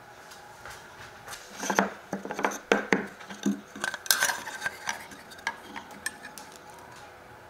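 A metal square and a small plywood strip handled and set down on a plywood board: a cluster of light knocks and clicks starting about a second and a half in and thinning out after about five seconds.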